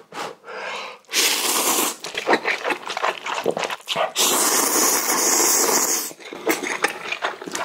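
Slurping of a mouthful of instant ramen noodles: a short slurp about a second in and a long one of about two seconds from about four seconds in, with wet chewing sounds between.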